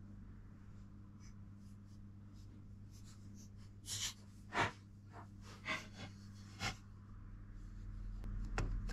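Light handling noises at a workbench: a few short clicks and taps as tape liner and small parts are set down, then a low rubbing as the plastic kitchen-scale base is lifted and turned, over a steady low hum.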